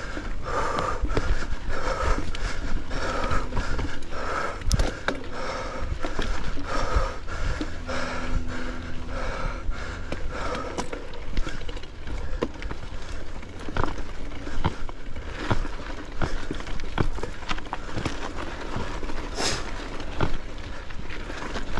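Mountain bike riding over rough singletrack: wind rumble on the camera, with scattered rattles and knocks from the bike over the trail. For about the first ten seconds the rider breathes hard and rhythmically, a little under two breaths a second.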